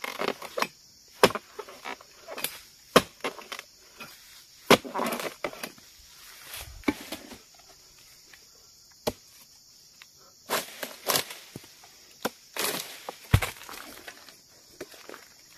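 Sharp knocks of a long harvesting pole's blade chopping and prying at the fronds and fruit-bunch stalk of an oil palm, about a dozen irregular strikes, with a heavier low thump near the end. A steady high insect drone runs underneath.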